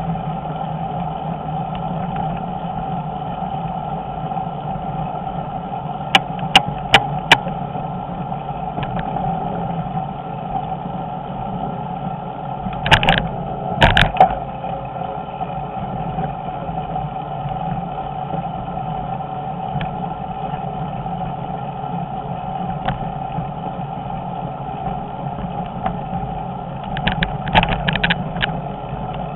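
Bicycle rolling over a concrete-paver cycle path, picked up by a camera mounted on the handlebars: a steady drone of riding noise and vibration, with a quick run of four sharp clicks, two heavy jolts about halfway through, and a brief rattle near the end.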